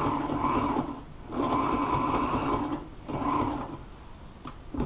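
Red portable industrial sewing machine stitching a French seam through upholstery fabric. It runs in three spurts with short stops between them and stops about three and a half seconds in.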